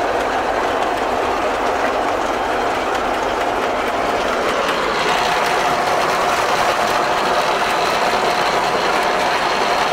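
German-built self-propelled mower running while mowing hay: a steady engine drone with the rhythmic clatter of the cutter bar, heard from inside the cab. About halfway through it gets slightly louder and a steady whine comes in.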